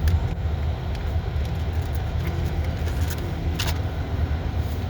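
Steady low rumble of a car driving, heard from inside the cabin, with a few scattered ticks and taps.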